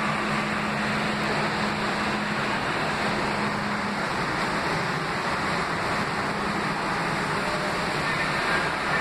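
Budd-built R32 subway train pulling out of the station: a steady rumble of steel wheels on rail and traction motors, with a low steady hum that fades out about four seconds in.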